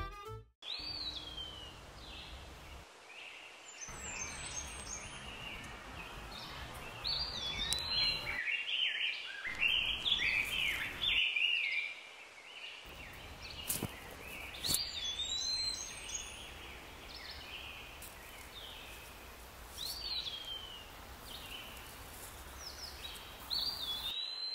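Small birds singing, with short chirping phrases repeated every few seconds, over a steady outdoor background hiss that drops out briefly a few times.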